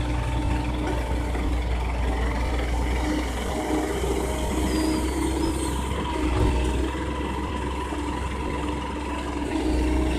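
Diesel engine of a Komatsu PC130 hydraulic excavator running steadily while it digs, with a brief surge in level a little past halfway.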